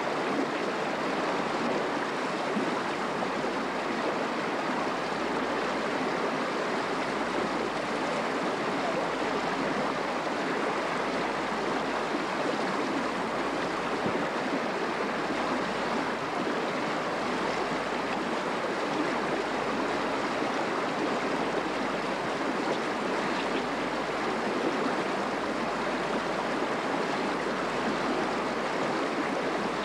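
Steady rush of a shallow mountain river running over rocks.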